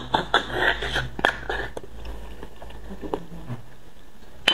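Spicy braised beef bone marrow being sucked out of the bone with wet slurps and smacks for about two seconds, then quieter chewing with scattered mouth clicks.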